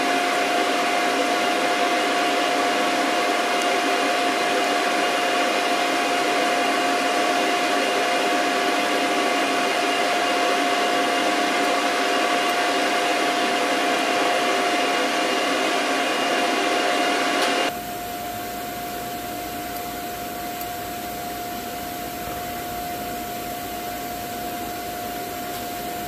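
Steady rushing blower noise with a constant whine from a foundry blower running during a molten-iron pour. About two-thirds of the way through it drops suddenly to a quieter, duller rush.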